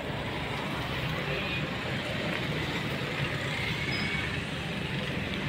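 Toyota Fortuner SUV driving slowly past at close range, its engine and tyres a steady low rumble over road traffic noise.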